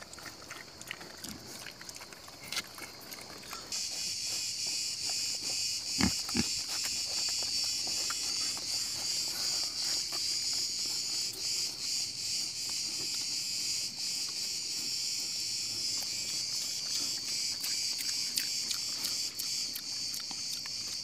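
Young wild boars chewing and snuffling at food scraps on concrete, with small clicks and a sharper knock about six seconds in. About four seconds in, a steady high-pitched insect chorus starts and becomes the loudest sound.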